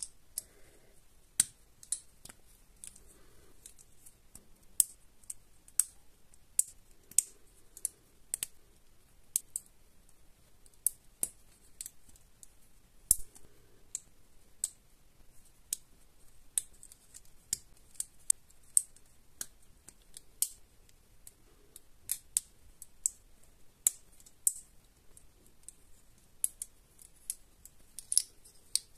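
LEGO plastic bricks clicking and snapping as they are pressed onto each other by hand: a long series of short, sharp clicks at uneven intervals, about one or two a second.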